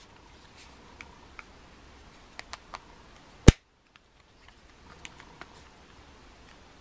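Small clicks and taps of fingers handling a plastic mobile phone, with one much louder sharp click about halfway through.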